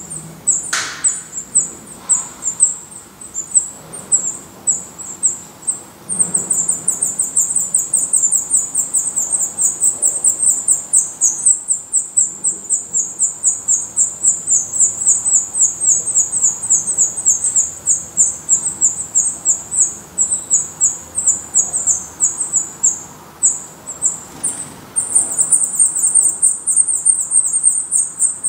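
Black redstart nestlings begging: a fast, unbroken run of high, thin calls, several a second, easing off twice for a moment.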